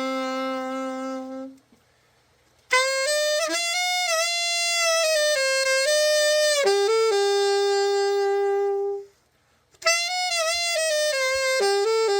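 Alto saxophone, the freshly overhauled Selmer Mark VII, played solo: a slow melody of held notes and short phrases, with two brief pauses for breath, one about two seconds in and one about nine seconds in.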